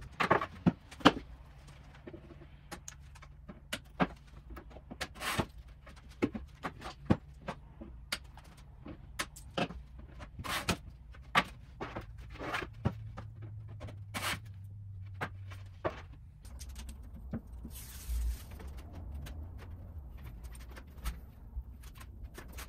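Scattered sharp clicks and knocks of melamine panels and hand tools being moved about on a wooden workbench, over a low steady hum, with a short hiss about three-quarters of the way through.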